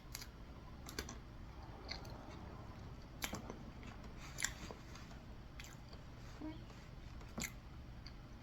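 Faint, close-up mouth sounds of someone chewing soft frosted cake, with sharp wet smacks or clicks about once a second over a low steady hum.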